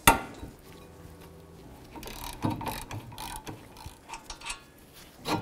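A sharp crack right at the start as the rusted 17 mm caliper bracket bolt breaks free. This is followed by a socket ratchet clicking in quick runs as the bolt is backed out, and a knock near the end.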